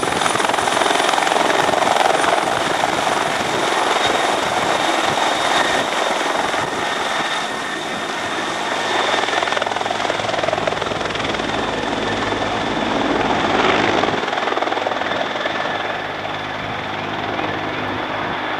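Rescue helicopter lifting off and climbing away overhead: the steady noise of its turbines and rotor, growing a little fainter in the second half.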